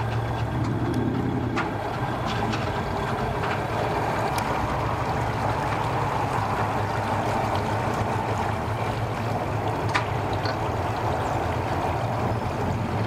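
Outboard boat motor idling steadily in the water, a low even hum with a few faint clicks.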